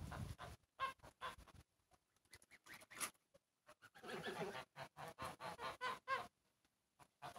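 Domestic geese calling with short honks: a few single ones near the start, then a quick run of them, several a second, from about four to six seconds in.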